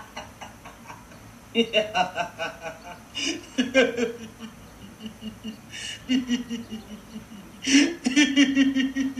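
People laughing in several bouts, each a run of quick chuckling pulses, the first starting about one and a half seconds in.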